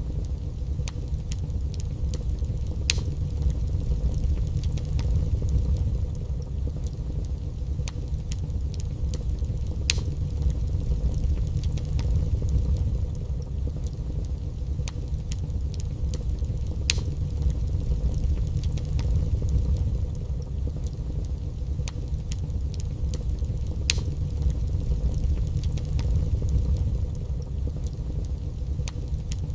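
Wood fire burning in a fireplace: a steady low rumble with sharp crackles and pops every few seconds.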